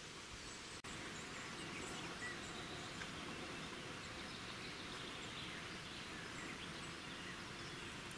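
Natural outdoor ambience: a steady hiss with scattered faint, short high chirps, and a brief dropout just under a second in.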